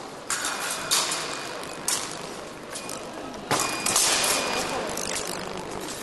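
Épée fencing action: blades clinking and clanging together and feet stamping on the piste, several sharp metallic hits with a ringing tail, the loudest a little past halfway.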